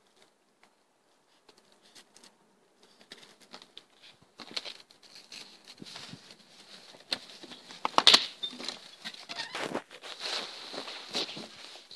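Footsteps crunching in snow, irregular and growing louder after a quiet first two seconds.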